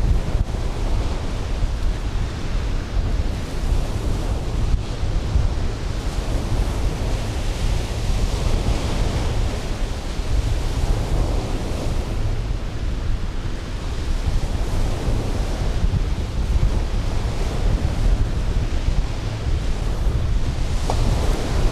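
Strong sea wind buffeting the microphone with a deep rumble, over surf breaking on the beach. The noise swells and eases every few seconds.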